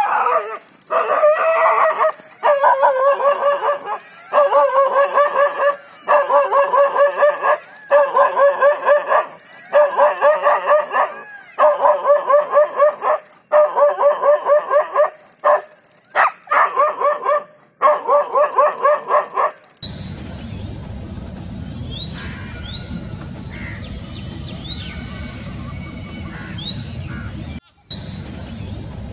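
A dog barking in rapid volleys of sharp barks, holding a leopard at bay. About twenty seconds in the barking gives way to short, rising bird chirps over a steady outdoor hiss.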